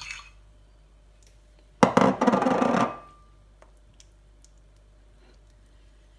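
A loud metallic clatter lasting about a second, starting about two seconds in, with a short ringing tone through it. A few faint small clicks follow.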